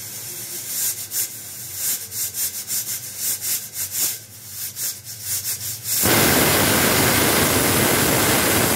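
Small 1.5-litre pressure cooker's whistle weight lifting as pressure peaks: steam escapes in quick hissing spurts, about three a second, then about six seconds in a loud steady hiss as the whistle blows fully.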